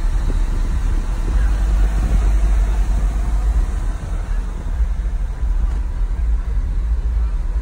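Deep, loud bass from a truck's car audio subwoofers playing, heavy and steady, with a brief dip about four seconds in.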